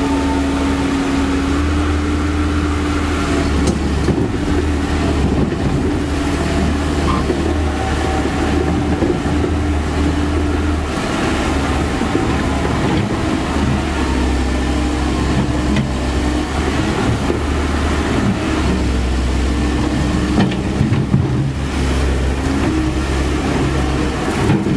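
Komatsu PC130F hydraulic excavator's diesel engine running steadily under working load as the boom and bucket move, its note shifting slightly with the hydraulics, over the rush of river water flowing over a weir.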